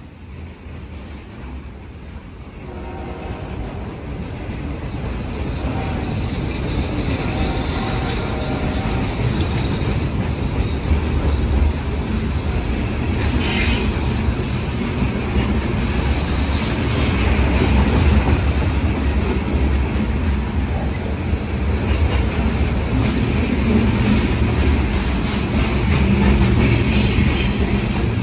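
CSX freight train rolling past: a low rumble with railcar wheels clattering on the rails. It grows louder over the first several seconds, then stays loud and steady.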